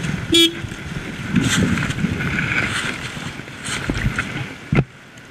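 Boots scuffing and crunching through dry leaf litter while a stuck dirt bike is handled and pushed, with a short loud pitched sound about half a second in and a couple of heavy thumps near the end.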